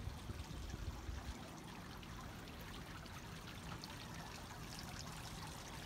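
Steady trickling, splashing water, with wind buffeting the microphone in the first second or so.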